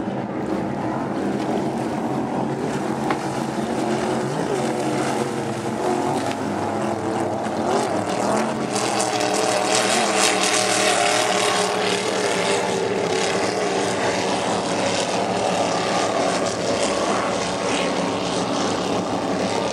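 Engines of several offshore racing powerboats running at speed, a dense steady drone that grows louder and brighter about eight seconds in as one boat passes close, then eases slightly.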